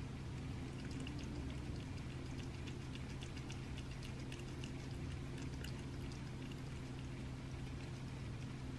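A cat eating wet raw rabbit food off a plate: rapid small wet clicks and lapping sounds, thinning out after about six seconds, over a steady low hum.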